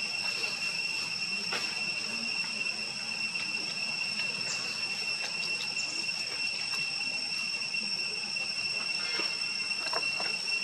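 Insects droning in a steady, high, even tone, with a few faint short clicks and chirps.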